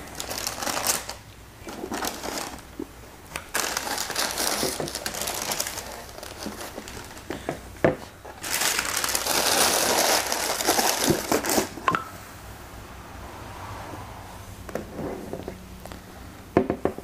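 Tissue paper rustling and crinkling in a cardboard shoebox as it is unpacked, with a couple of sharp knocks of the box. The rustling is loudest about two-thirds through, then gives way to quieter handling of the boots.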